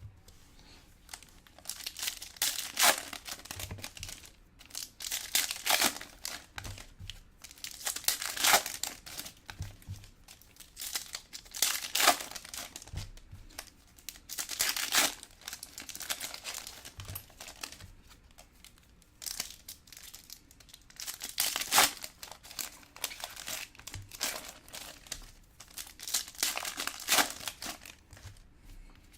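Trading-card pack wrappers crinkling and tearing in bursts every two to three seconds, as packs are handled and ripped open.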